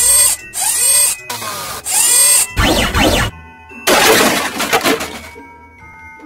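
A run of loud, noisy sound-effect bursts with sliding tones in them, each under a second long, over light background music. The last and longest burst ends about five seconds in, leaving the music.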